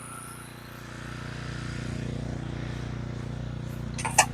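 A motor running steadily with a low hum that swells a little in the first couple of seconds, then holds. Two sharp clicks come near the end.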